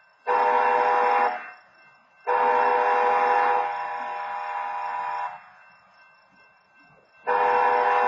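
Stationary wayside horns at a railroad grade crossing sounding the warning for an approaching train: a steady chord-like horn tone in three blasts, each loud for about a second, with the second one holding on at a lower level for about two more seconds and gaps of near quiet in between.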